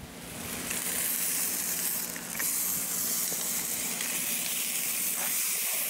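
Meat sizzling on a hot iron griddle over a wood fire: a steady hiss that swells in over the first second, with a faint low hum underneath.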